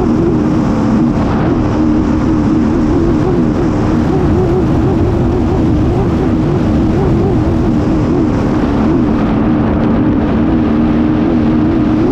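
A racing hydroplane's engine running hard at a steady, slightly wavering pitch, heard from on board with rushing wind and water noise.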